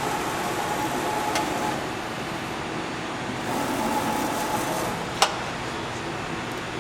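Romi-Bridgeport EZ-Path CNC lathe's axis drives whining as the slides are jogged with the spindle stopped, in two runs that stop about two seconds in and run again from about three and a half to five seconds, over the machine's steady hum. A sharp click comes just after the second run.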